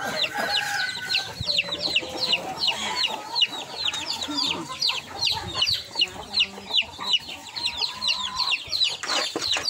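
Backyard chickens clucking and calling, over a fast, steady run of short high chirps that fall in pitch, about five a second.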